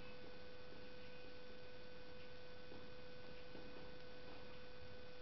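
A faint, steady hum at one fairly high pitch, with a few soft ticks.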